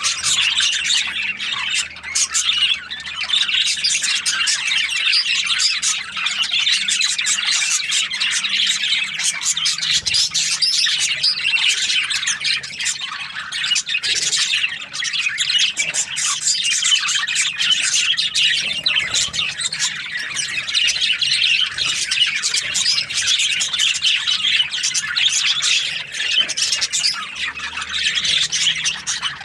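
A flock of budgerigars chattering and chirping, many birds calling over each other in a steady, unbroken stream of quick, warbling notes.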